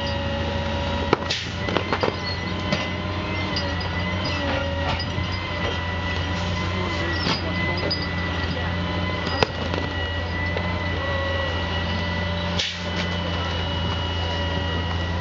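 Sanitation grapple truck's engine and hydraulics running steadily, a low drone with a thin high whine over it, while the grapple crushes and lifts a load of tents and debris. Several sharp knocks come in the first few seconds, with the loudest single knock about nine seconds in.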